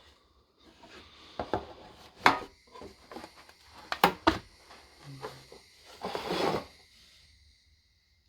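Handling of a pocket knife and its packaging: a few sharp clicks and knocks, then a short rubbing sound about six seconds in, fitting a cloth wiping the factory oil off the knife.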